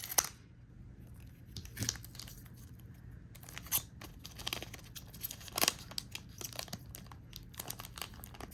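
Trading cards and a foil booster-pack wrapper being handled, making irregular crinkles, rustles and a few sharper card flicks.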